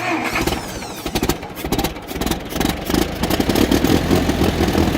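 Massey Ferguson 50 tractor engine running just after a cold start in freezing weather, firing unevenly at first and settling into a steadier run about three seconds in.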